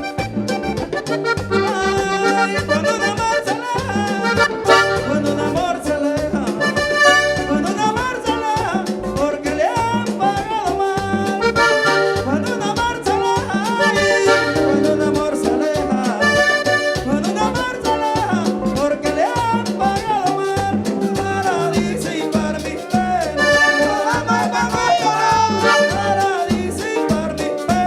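Live Panamanian música típica band playing: accordion carrying the melody over a steady beat of bass and percussion.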